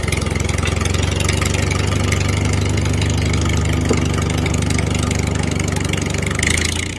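Tractor engine running steadily, a continuous low hum with a fast even beat, cutting off abruptly at the very end.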